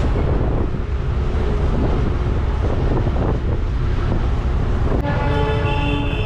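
Wind buffeting the microphone over the low, steady engine and road rumble of a moving shared taxi. Near the end a held sound with several steady pitches comes in.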